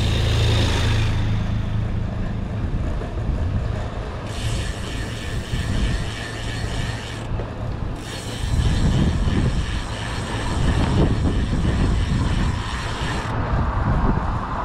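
Bicycle freehub ticking rapidly as the rider coasts, in two stretches, over a steady rumble of wind on the microphone and tyres on concrete. A low engine hum from a utility vehicle is heard in the first second.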